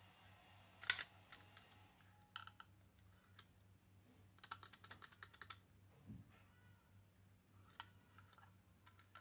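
Faint plastic clicks and taps from a clear plastic GoPro underwater housing being handled as its hinged back door is swung shut and closed. There is a sharper click about a second in and a quick run of small clicks around the middle.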